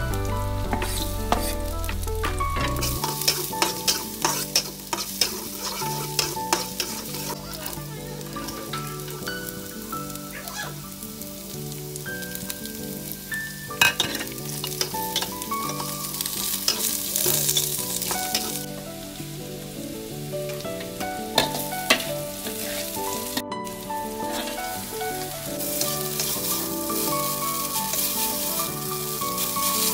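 Shallots, garlic and carrot strips sizzling in hot oil in a wok, with a metal spatula stirring and scraping against the pan in short ticks. The sizzle eases off for a few seconds twice and then picks up again.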